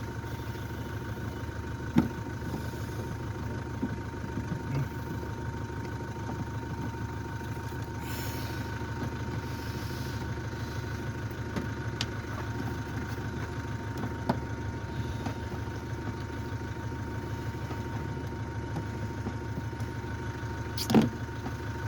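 Steady machine hum with a faint constant whine, broken by a few sharp clicks and knocks of hand work on car trim.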